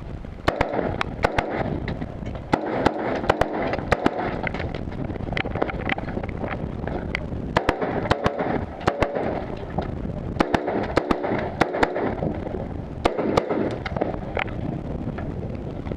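Rifle shots fired during a timed stage: quick strings of sharp cracks, several a second, broken by short pauses between target arrays.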